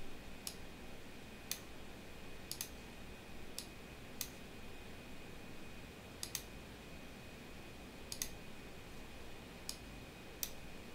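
Scattered clicks of a computer mouse and keyboard: about a dozen sharp single and paired clicks, roughly one a second, over a faint steady high hum.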